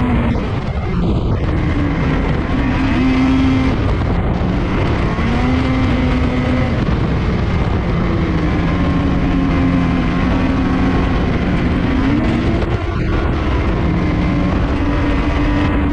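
A motor vehicle driving, with a steady rush of engine and road noise. The engine's pitch rises and falls over the course of the drive.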